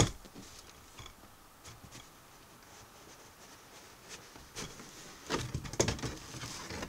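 Cardboard kit box being handled: a sharp knock right at the start, then faint scattered taps and rustles, and a busier stretch of cardboard scraping and rustling near the end as the printed lid is lifted off the box.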